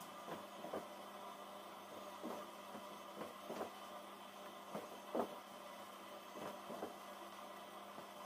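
Irregular soft taps and knocks as raw qoğal dough rounds are set down in a metal baking pan and the pan is handled. The loudest knock comes about five seconds in, over a steady low hum.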